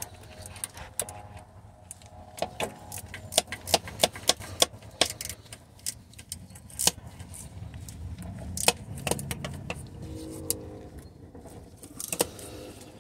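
Irregular sharp metallic clicks and clinks of hand tools and hardware being handled up behind the engine, coming thickest in the first half, over a low steady hum.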